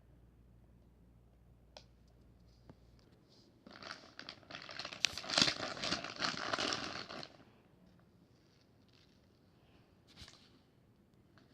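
Packaging being crumpled and crinkled by hand for about three and a half seconds, with a few light clicks and taps before and after.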